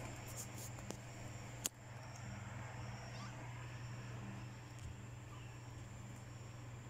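Kittens scuffling at play in a plastic crate, with a faint short mew about three seconds in, over a steady low hum. A sharp click under two seconds in is the loudest sound.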